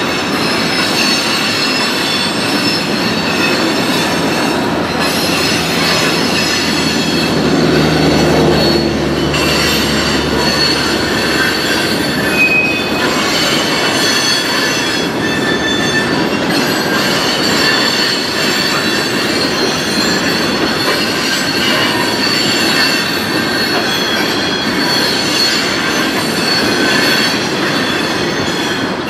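Steel wheels of slow-moving freight cars squealing steadily against curved track, several high tones held over a continuous rail rumble. A deeper drone swells around eight to ten seconds in.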